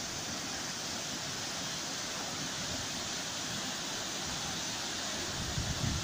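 Waterfall plunging into a pool, a steady rushing hiss. In the last moments, low gusts of wind buffet the microphone.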